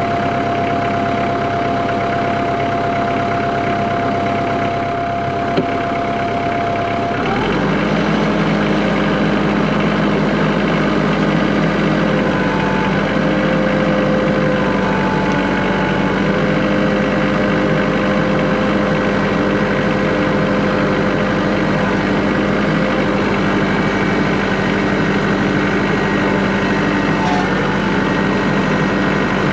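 Kubota L3940 tractor's diesel engine running steadily, throttled up about seven seconds in and then holding a higher, steady speed.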